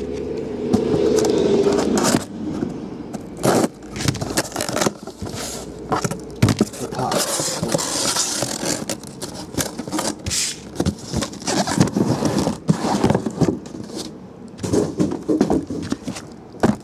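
A cardboard shipping case being opened by hand. Packing tape is pulled off in the first two seconds, then cardboard scrapes and rustles as the case is worked open and the sealed card boxes inside are slid out and stacked with a run of knocks.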